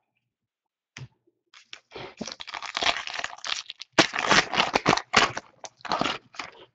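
Foil wrapper of a 2014 Donruss baseball card pack crinkling and tearing as the pack is opened by hand, a run of crackly rustles starting about a second and a half in.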